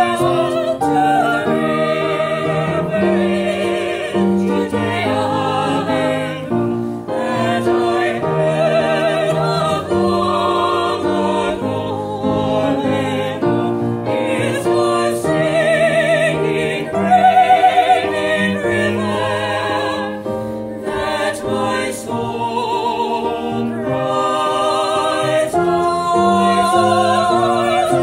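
Small mixed vocal quartet, two women and two men, singing a song together in parts.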